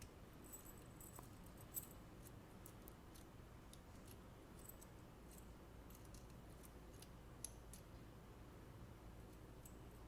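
Near silence broken by a few faint, sharp clicks of a small square steel padlock and its key being handled.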